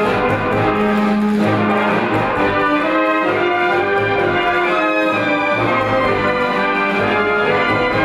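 A full brass band playing: cornets, tenor horns and tubas together in sustained chords that move from note to note.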